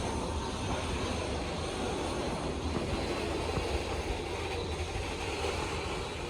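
Freight train hauled by a WAG-12 electric locomotive passing slowly, a steady low rumble.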